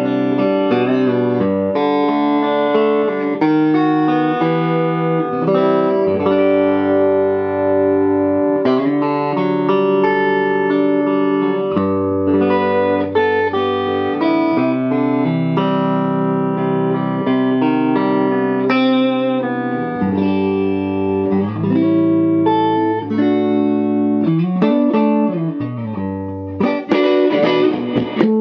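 Electric guitar played through a Fender Princeton Reverb amp, ringing chords and melodic single-note lines, with a quicker run of brighter picked notes near the end.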